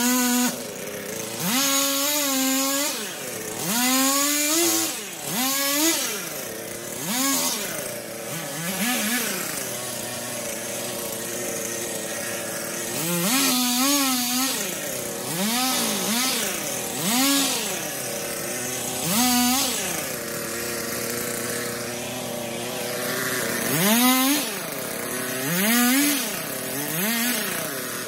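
Two-stroke chainsaw revving up and dropping back to idle again and again, about a dozen times, as it cuts through branches and brush. There are longer spells at idle between the cuts.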